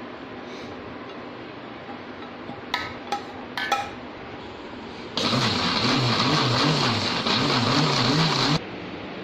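An electric mixer grinder with a steel jar blends cooked mushrooms, onion and water into a puree. The motor runs loud for about three and a half seconds, its pitch wavering as the load shifts, then cuts off suddenly. A few sharp clicks and knocks come before it starts.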